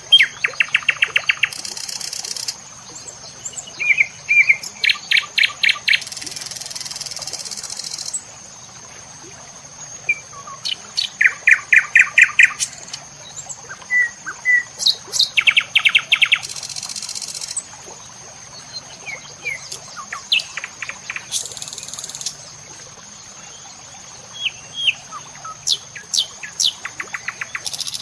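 Birds chirping: a rapid trill of chirps repeats every few seconds, mixed with short whistled notes. Under them runs a steady high-pitched insect whine, joined every several seconds by a louder burst of high buzzing.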